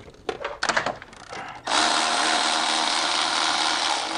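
A few light metal clicks as a 13 mm socket is fitted, then, about a second and a half in, a handheld power tool starts up and runs steadily, spinning a nut off the starter.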